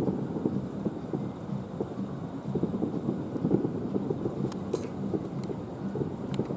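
Many fireworks bursting in quick succession, a dense, continuous rumble and crackle, with a few sharp snaps near the end.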